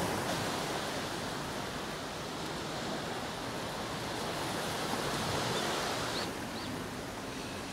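Waves washing onto the shore: a steady hiss of surf that swells and eases, dropping a little about six seconds in. Two faint short high chirps come through near the end.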